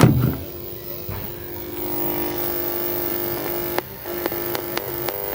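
A thump at the start, then a steady buzzing tone with many overtones from a small loudspeaker driven by a salvaged 6283-IC 12 V amplifier board, broken by several sharp clicks in the second half.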